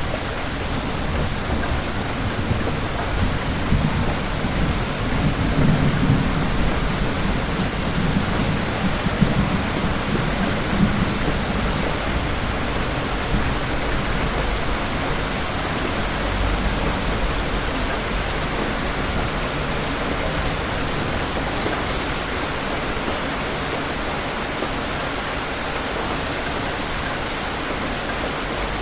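Steady heavy rain with thunder rumbling low, swelling between about three and eleven seconds in, and a further low rumble around the middle.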